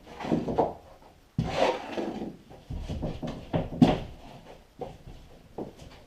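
A drywall sheet being handled and fitted against the wall: irregular scraping and rubbing with several knocks, the longest scrape about a second and a half in.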